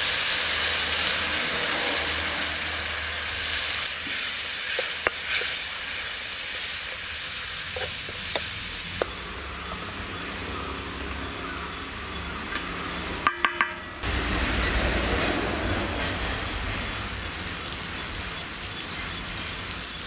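Tempering of mustard seeds, chana dal, curry leaves, dried red chillies, lemon juice, turmeric and salt sizzling in hot oil in an aluminium kadai. The sizzle drops away sharply about nine seconds in, and a few sharp clicks follow a few seconds later.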